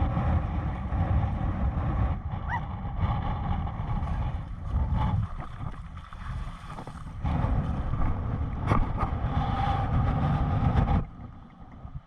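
Strong wind buffeting the microphone over open water, a heavy gusting rumble in a 30-mile-an-hour wind. It cuts off abruptly near the end.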